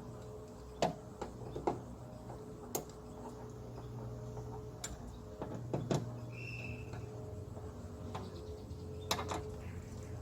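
Irregular sharp clicks and taps, roughly one a second, from hand tools and door parts being handled during reassembly, over a steady low hum.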